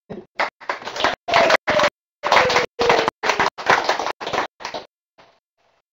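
Audience applauding, heard through a web-conference audio feed that chops the clapping into short blocks with brief dropouts, dying away after about five seconds.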